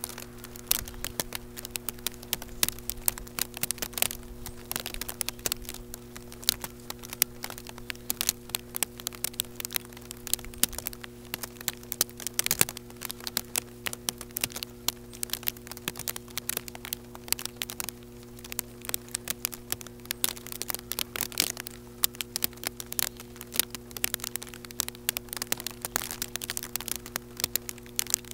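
Raindrops striking the camera and its microphone: a dense, irregular crackle of sharp clicks that goes on without a break, over a steady low electrical hum.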